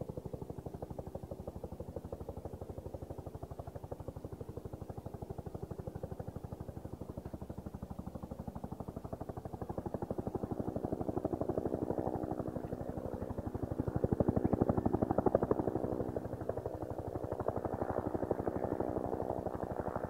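UH-1J helicopter in a hover, its two-bladed main rotor beating in a fast, steady chop, growing louder about halfway through as it comes closer.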